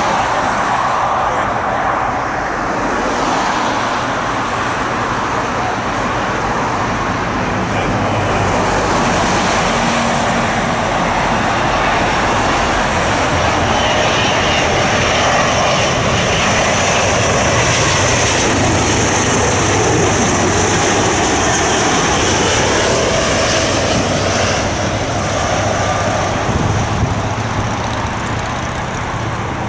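Large jet airliner on final approach passing close by, its engines a steady loud roar with a high whine. The roar builds to its peak in the middle and eases near the end.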